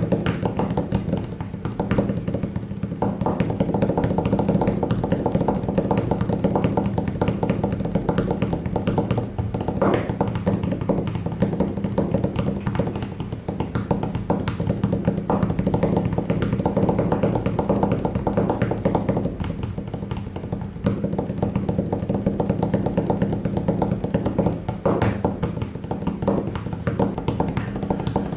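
Instrumental background music with plucked strings and quick tapping percussion.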